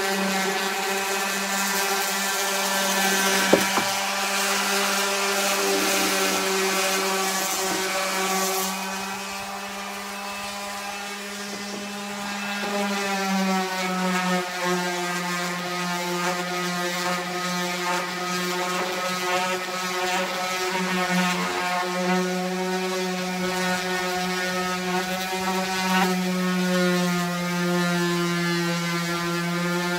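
Electric random orbital sander with 80-grit paper running steadily on a pine board: a constant motor hum with the scratch of the pad on the wood. The sanding hiss is stronger in the first few seconds and fades about nine seconds in, and the hum dips slightly in pitch a few seconds later.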